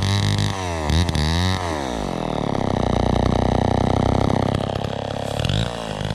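Homelite C-91 chainsaw's 5.2 cubic inch two-stroke engine running. Its pitch swings down and back up in the first second or so, then it eases off to a lower, steady speed, with a brief blip near the end.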